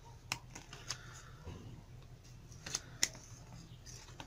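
Needle-nose pliers clicking and copper wire scraping as the wire is wound tightly around a soldering iron's barrel: a few sharp ticks, the loudest about three seconds in.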